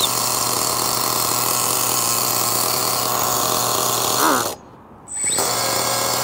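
Small two-stroke nitro (glow) engine of a 1/7-scale RC F1 car running steadily at idle. About four seconds in it revs up briefly, then the sound cuts out for under a second and resumes.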